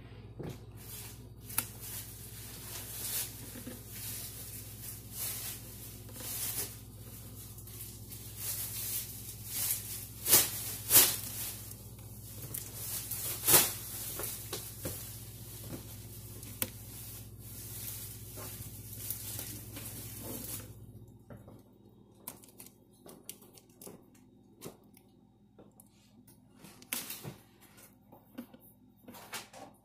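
Contact paper crinkling and rustling as it is handled, with a few sharp crackles about a third of the way in. A steady low hum underneath cuts out about two-thirds of the way through, leaving only scattered small clicks.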